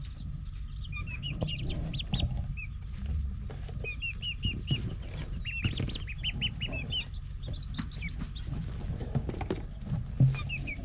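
Young chicks peeping, a steady run of short high chirps in clusters, over a low steady hum.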